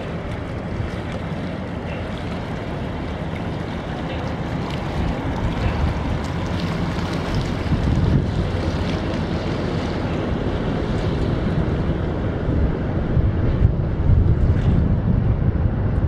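An inland motor tanker barge passing close by: water rushing along its steel hull over a low rumble, slowly growing louder. Wind buffets the microphone throughout.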